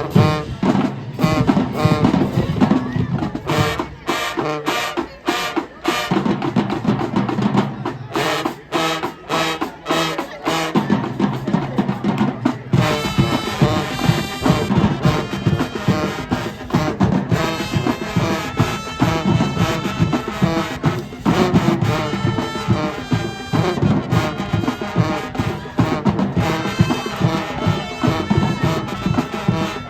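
High school marching band playing its field show: a driving, drum-heavy stretch of snares and bass drums, with the brass coming in strongly about halfway through.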